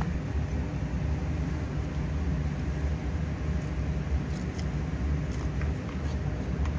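Steady low hum of background machinery, with a few faint light clicks after about four seconds.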